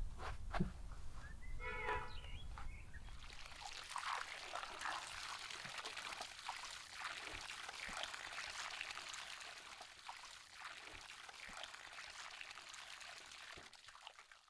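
Water from a garden tap pouring steadily into an enamel basin of raw chicken pieces and splashing as hands rinse and turn the meat. The flow starts about three seconds in.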